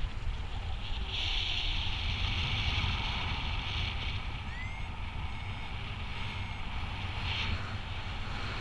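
Airflow buffeting the microphone of a harness-mounted camera on a paraglider in flight: a steady low rumble with a high hiss that swells about a second in and eases off a few seconds later.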